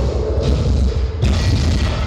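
Dense, loud experimental noise music: a heavy low rumble under a layer of noise, which turns abruptly brighter and hissier a little past halfway.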